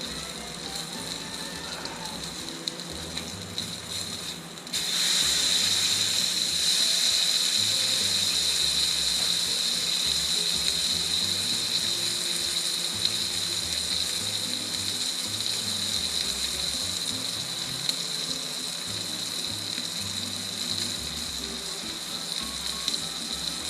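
Wagyu New York strip sizzling on a Blackstone flat-top griddle: a steady frying hiss that turns suddenly much louder and brighter about five seconds in, then carries on strongly.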